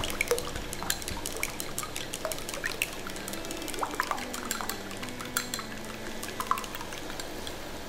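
Raw eggs being beaten in a small glass bowl with chopsticks: quick, irregular clicks of the chopstick tips against the glass over a wet sloshing of the egg.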